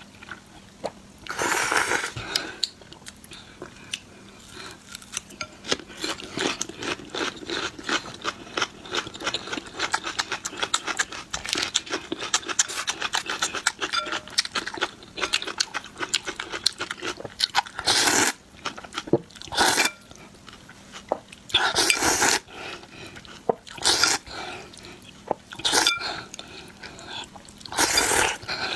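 Close-miked eating of noodles and fried egg: a long run of rapid, wet chewing clicks, broken by several short, loud bursts of eating noise spaced a second or two apart.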